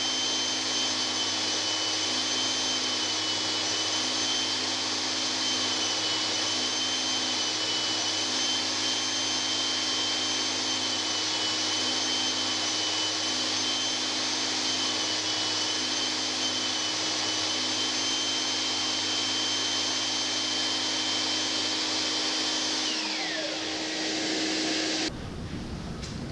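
Belt sander running steadily with a vacuum pulling on its dust hose, a high whine over the hum, as small wooden handles are sanded on the belt; a lower note comes and goes. Near the end the sander is switched off and its whine falls away as the belt spins down.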